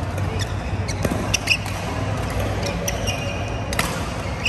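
Badminton doubles rally: sharp clicks of rackets striking the shuttlecock, a few times in quick succession, mixed with short high squeaks of court shoes on the floor, over a steady low hum.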